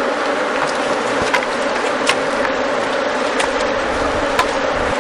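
Honeybees buzzing steadily in a dense mass, as around a hive, with a few sharp clicks scattered through.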